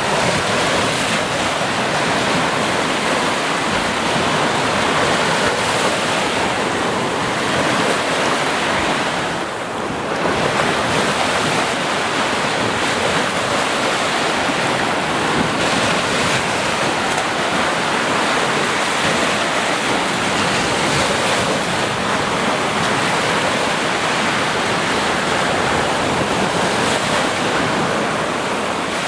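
Sea waves washing continuously onto a beach, a steady dense surf with a short lull about ten seconds in.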